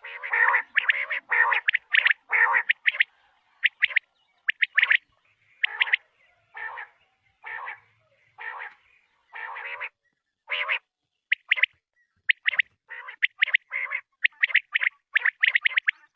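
Quail calling: a long series of short, rough calls, close together at first, slowing to about one a second, then coming quicker again in clusters in the last few seconds.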